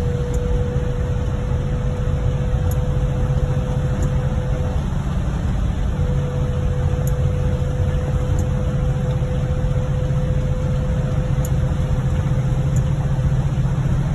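Steady in-cabin noise of a car driving on a rain-soaked highway: tyre hiss on the wet road over a low engine and road drone. A thin steady hum runs along with it and drops out for about a second around the middle.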